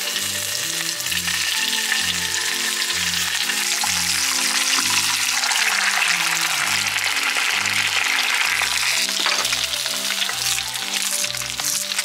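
Bacon and eggs sizzling in hot fat in a cast-iron skillet on a portable gas stove, the sizzle swelling louder for a few seconds in the middle.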